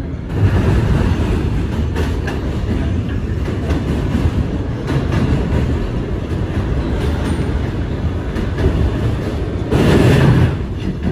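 Ride noise of a Kawasaki R211A subway car running between stations, heard on board: a steady low rumble of wheels on rail with a few light clicks, swelling louder for a moment about ten seconds in.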